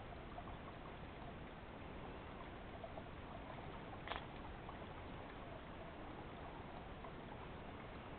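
River water flowing steadily, with a sharp click about four seconds in.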